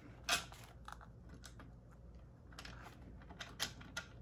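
Scattered small clicks and taps of hand-fitted parts: a suspension support piece being handled and seated against a scooter's rear suspension. There is one sharper click just after the start and a cluster of several near the end.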